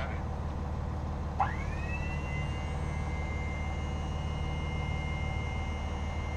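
RV leveling jack motor switching on with a click about a second and a half in. Its whine rises quickly, then holds at a steady high pitch while the jack extends down, over a steady low hum.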